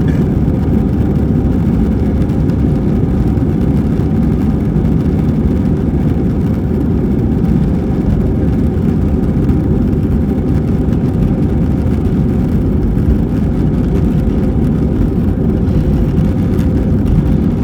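Airbus A320 cabin noise heard from inside the cabin: a steady low rumble of engines and airflow that holds constant, with no distinct events.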